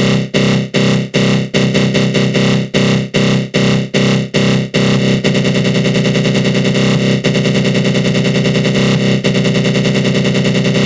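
Synthesized attack-growl sound effect: a low, buzzing synth tone run through a flanger. It pulses with short breaks about two or three times a second, then turns into a rapid stutter about five seconds in.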